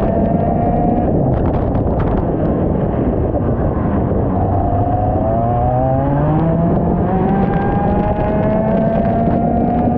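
IAME X30 125cc two-stroke kart engine on the throttle: its pitch rises through the first second, falls away off the throttle, then climbs again from about four seconds in and once more from about seven and a half seconds, over rough noise on the microphone.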